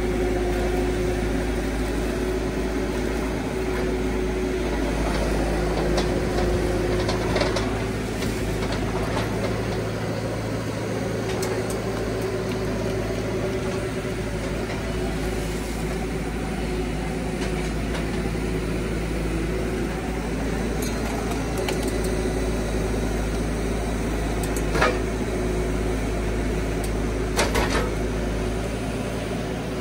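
Bobcat T300 compact track loader's diesel engine running steadily with a held whine while its pallet forks lift and carry a walnut log. A few sharp knocks near the end.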